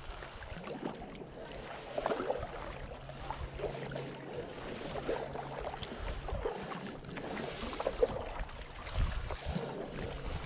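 A paddle dipping and splashing in lake water in repeated, uneven strokes as a small boat is paddled along, with water dripping and sloshing. Wind buffets the microphone in low rumbling gusts at times, notably just past the middle and near the end.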